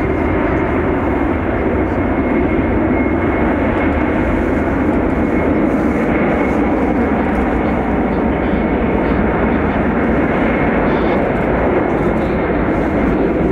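Jet engines of a heavy cargo airliner running, a steady loud rushing rumble with a thin high tone held over it.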